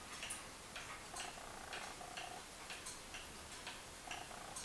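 Vintage regulator wall clock ticking steadily, its pendulum escapement beating about two ticks a second.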